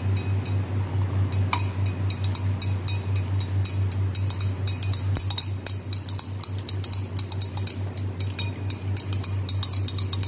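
Glass stirring rod clinking rapidly and irregularly against the inside of a glass beaker as hydrochloric acid is stirred into the solution, over a steady low hum.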